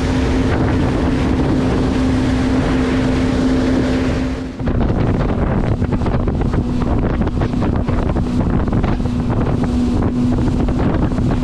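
Personal watercraft engine running steadily at speed, a constant hum under heavy wind noise on the microphone and rushing water. There is a brief drop in level about four and a half seconds in, after which the same steady running carries on.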